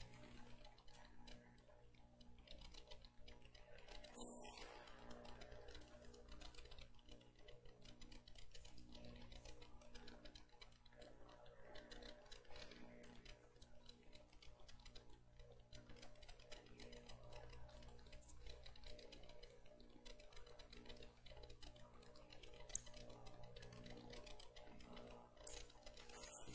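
Near silence: sanctuary room tone with a faint steady hum and a few small clicks.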